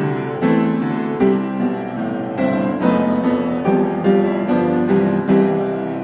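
Background piano music: a run of struck notes over chords.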